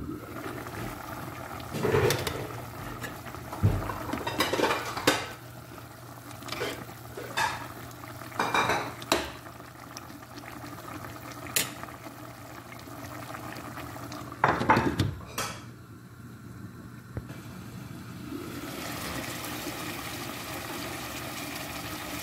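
A ladle knocking and clinking irregularly against a granite-coated cooking pot while chicken stew is stirred, after the glass lid is lifted off. In the last few seconds there is a steady hiss of the stew simmering.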